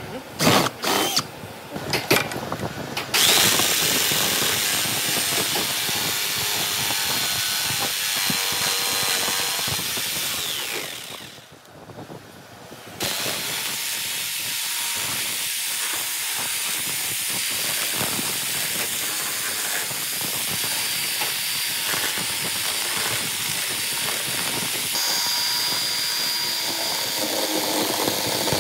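Cordless drill boring into plywood, starting and stopping in short bursts, then running steadily. After a short lull about halfway through, a Makita 4328 jigsaw runs steadily, its blade sawing through the plywood gear.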